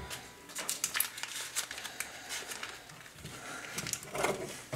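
Frozen butter being grated on a metal box grater over a bowl of flour: a run of irregular scraping, scratchy strokes that grow louder about four seconds in.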